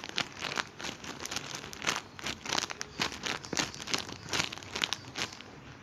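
Plastic packaging crinkling as a squishy toy is handled in it: a quick, irregular crackle that stops about five seconds in.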